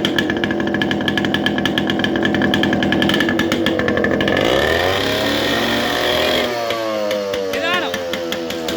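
Yamaha RX-series two-stroke single-cylinder motorcycle engine revving. It is held at high revs for about four seconds, then the revs rise and fall in the second half.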